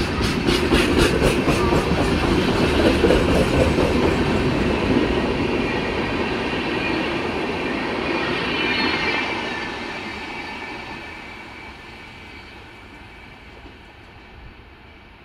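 LHB passenger coaches of an express train rolling slowly past, their wheels clicking regularly over rail joints, with a brief high wheel squeal as the last coach goes by about eight seconds in. The rumble then fades steadily as the train moves away.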